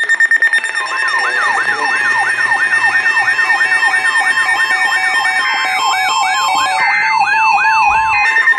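Electronic siren-style alert tone: a wail sweeping up and down about three times a second over a steady high tone, with a couple of brief breaks near the end. It is the alarm heralding a severe thunderstorm warning.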